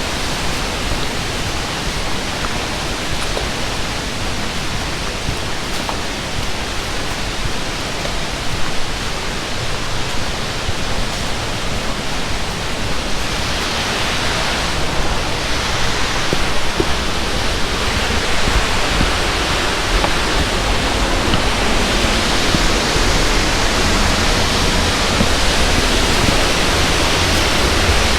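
Waterfall pouring steadily, a loud even rush of falling water that grows louder about halfway through.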